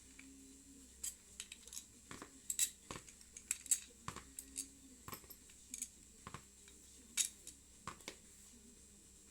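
Light metallic clicks and clinks of metal tools or parts being handled, coming irregularly from about a second in until near the end.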